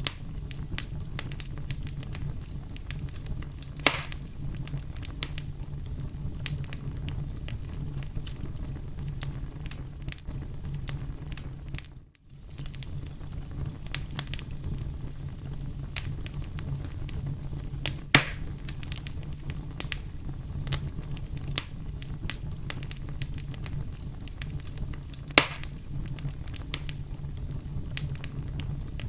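Campfire burning steadily with a low rumble, dotted with small crackles and three sharper, louder pops. The sound drops out briefly near the middle.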